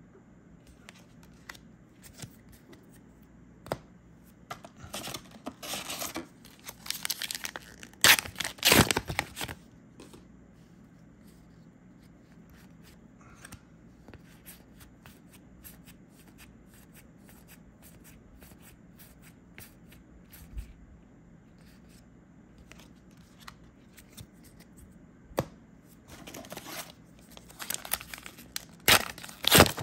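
Trading-card booster packs being torn open and cards handled: two spells of tearing and crinkling rustle, the louder about eight seconds in and another near the end, with a long quiet stretch of small clicks between.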